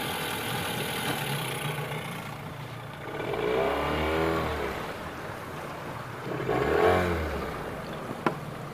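2001 Johnson 9.9 hp two-cylinder two-stroke outboard running at low speed, then revved up and back down twice, a few seconds in and again near the end. A sharp click follows shortly before the end.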